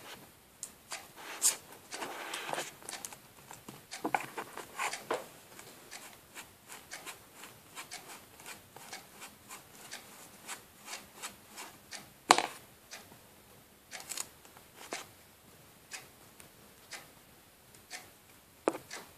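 Hands rubbing and scratching at masking tape on a plastic CD, with scattered small clicks and scrapes. There is a rustling stretch a few seconds in and one sharp click about two-thirds of the way through.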